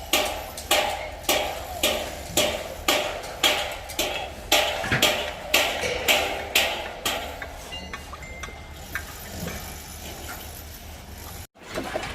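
Repeated blows on a worksite, about two a second and evenly paced, each a sharp knock with a short ring, for some seven seconds; then the blows stop and only weaker scattered knocks follow.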